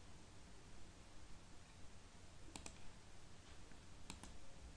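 Computer mouse buttons clicking: two quick double clicks about a second and a half apart, faint, over low room hiss.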